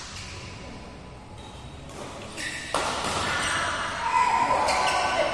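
Badminton rackets hitting a shuttlecock during a doubles rally: a few sharp smacks, the first about two and a half seconds in and another near the end.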